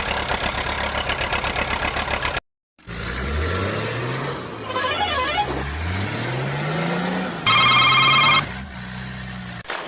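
Edited-in vehicle sound effects: a rapid engine rattle that cuts off suddenly, then an engine revving up several times, with a loud, brief electronic ringing trill near the end.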